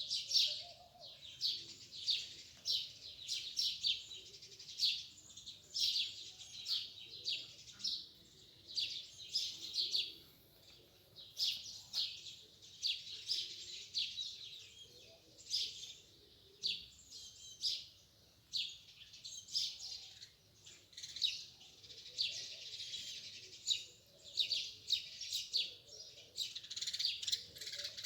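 Many small birds chirping together: a dense, continuous chorus of short, high, overlapping chirps.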